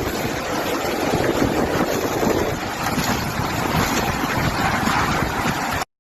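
Strong storm wind roaring and buffeting the microphone with a rough, irregular low rumble; it cuts off suddenly near the end.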